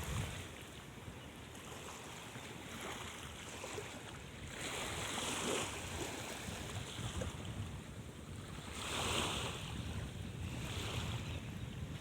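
Water washing in waves, with two louder surges about five and nine seconds in, over a low rumble of wind on the microphone.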